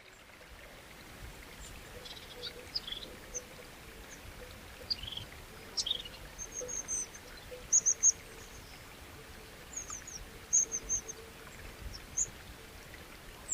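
Small birds chirping in short, high notes, several coming in quick runs of two or three, over a steady outdoor background noise.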